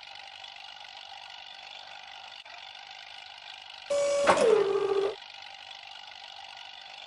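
Knuckle boom loader machinery running with a steady mechanical whine. About four seconds in, a louder burst lasting just over a second carries a tone that falls in pitch.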